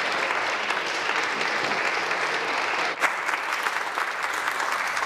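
Many people in a legislative chamber applauding: a steady clapping of many hands.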